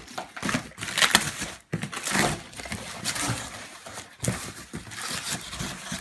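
A blade cutting along the packing tape of a cardboard box, with irregular rasping strokes and the crinkle and tear of the packaging being handled.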